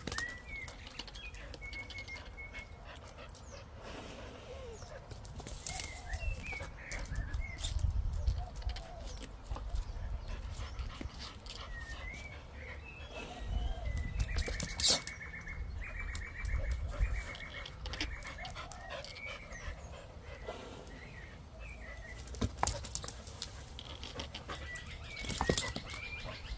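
Australian kelpie x border collie playing after bubbles on a paved path: scattered sharp clicks and scuffles of paws and jaws, with bursts of low rumble. Small birds chirp throughout, with a rapid trill in the middle.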